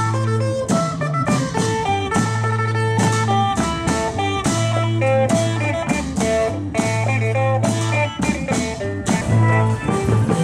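Background music with a steady beat: a melodic instrumental over a repeating bass line.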